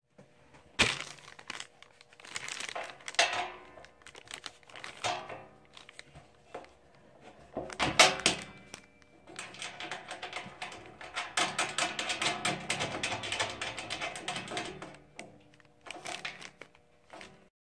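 Hardware handled while bolts are hand-tightened into the sheet-steel panels of a bandsaw stand: small metallic clicks and rattles, with two sharp knocks about a second in and around eight seconds in. Plastic sheeting under the stand crinkles, busiest from about nine to fifteen seconds.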